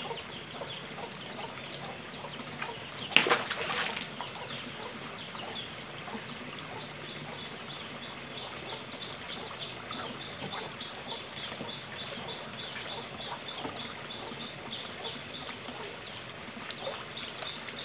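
A sudden splash about three seconds in as a giant snakehead is let go from a landing net into a pond. Chickens cluck in the background, and a rapid high chirping runs through the second half.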